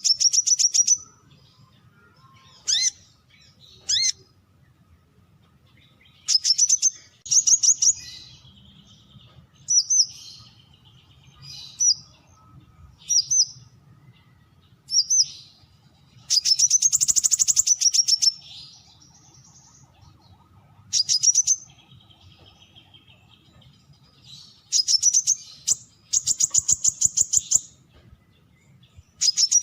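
Brown-throated sunbird calling: high, fast trills of rapidly repeated notes, each lasting a second or two, with short sharp calls in between.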